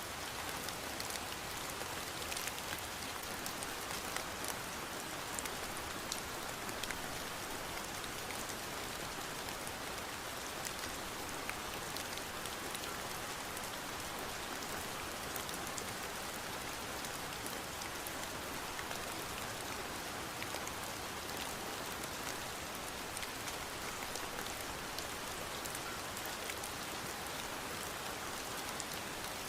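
Steady rain falling, an even hiss dotted with many small drop clicks.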